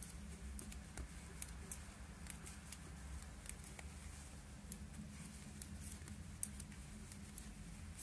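Metal knitting needles clicking lightly and irregularly as stitches are worked, over a low steady hum.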